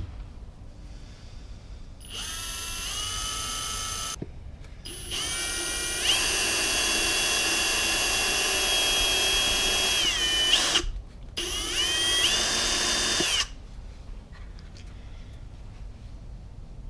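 Electric drill run three times. Each time the motor whine rises as it spins up, holds steady and dies away, and the middle run is the longest. The drill is opening up screw holes in the plastic headlamp housing with a worn drill bit.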